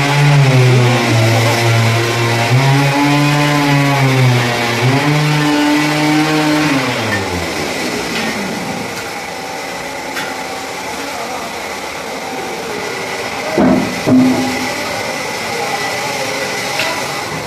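A machine motor running with a pitch that shifts up and down, then winding down about seven seconds in. A quieter hum follows, with a couple of metallic knocks near the end.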